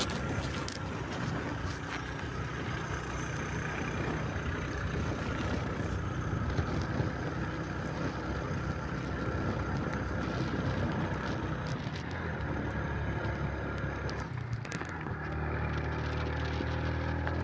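Motorcycle engine running with wind and road noise while riding along. After a brief dip a little past two-thirds of the way through, the engine settles into a steadier, stronger hum.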